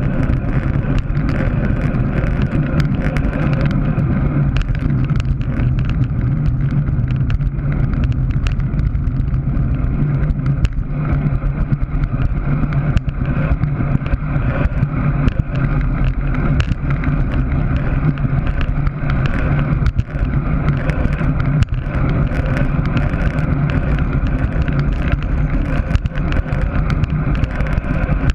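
Steady rush of wind on the microphone of a camera mounted on a road bicycle riding fast, mixed with road noise.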